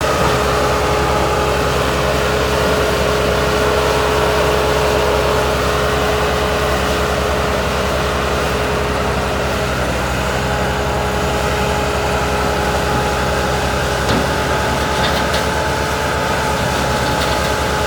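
Bobcat S300 skid-steer loader's diesel engine running steadily at a constant speed, with a steady whine over the engine note.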